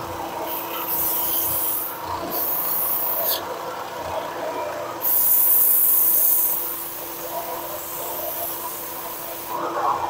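Ridgid oscillating edge belt sander running with a steady motor hum, and a hissing rasp each time a wooden piece is pressed to the sanding belt to flatten out rough bandsaw marks. There are three distinct passes, the loudest and longest about five seconds in, then lighter sanding.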